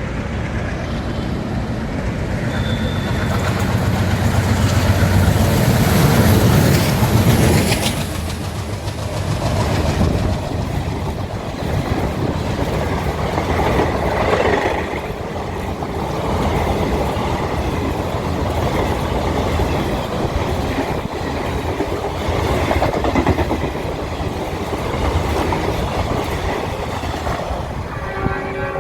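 An Indian express train passing close at speed. The locomotive's rumble builds to its loudest about six or seven seconds in, then a long rake of coaches rattles past, wheels clacking over the rail joints.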